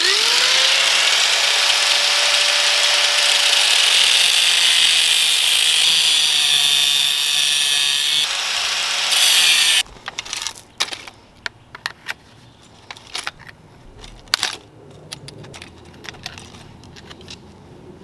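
Angle grinder spinning up and cutting notches into a steel foot-peg rod: a loud, steady grinding over the motor's whine for about ten seconds, then it stops abruptly. After that, scattered clicks and knocks as the rod and clamps are handled.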